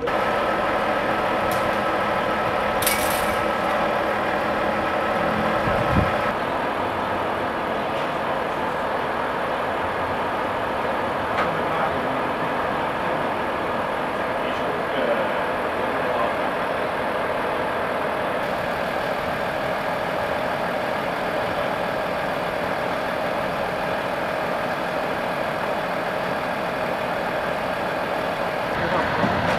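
Heavy diesel truck engine idling steadily, with a brief knock about six seconds in.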